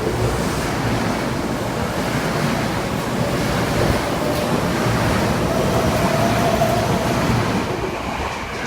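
Running noise of a Tokyo Metro 7000 series train: a steady roar of wheels on rails with a faint whine rising slightly in pitch midway. The noise begins to fade near the end.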